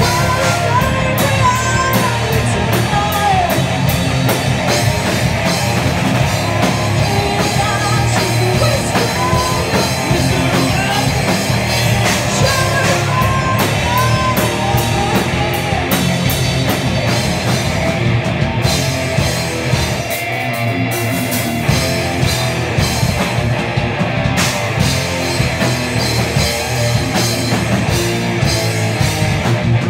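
Live heavy metal band playing loud: distorted electric guitars, bass and drum kit, with a woman singing over them. The deepest bass drops out briefly about twenty seconds in.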